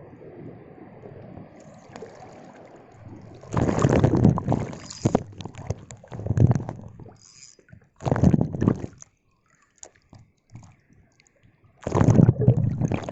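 Big sea waves surging and splashing around a wading angler, heard through a phone sealed in a waterproof pouch. A faint steady wash gives way to four loud rushing surges, at about three and a half, six, eight and twelve seconds in.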